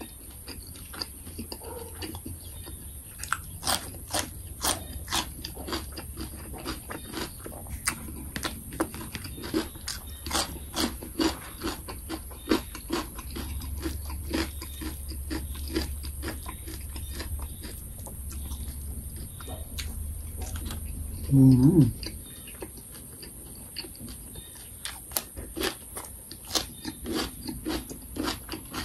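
Close-miked eating: wet chewing and lip-smacking as sticky rice dipped in pounded mackerel chili paste is chewed, heard as a dense run of short mouth clicks and smacks. About 21 seconds in comes one brief, loud voiced sound from the eater.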